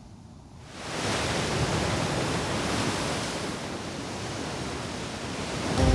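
Steady rushing of wind through coconut palm fronds, coming in about a second in.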